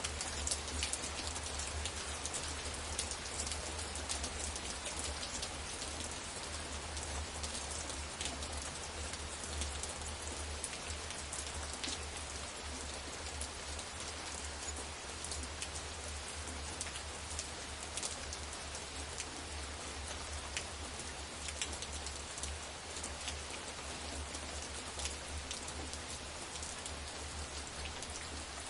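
Steady rain falling, a continuous hiss with many individual drops ticking on surfaces, and a low steady rumble underneath.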